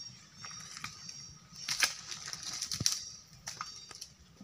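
Footsteps crunching and snapping through dry fallen palm fronds and leaf litter, in irregular sharp cracks, the loudest about two and three seconds in. Faint high chirping runs in the background.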